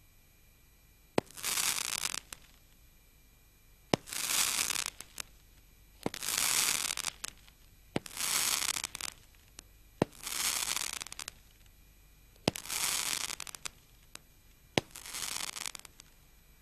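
Roman candle firing seven crackling-star shots about two seconds apart: each a sharp pop of the launch followed by about a second of dense crackling.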